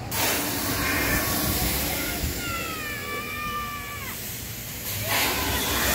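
A person's long, high scream, falling slightly in pitch before it breaks off, over steady background noise.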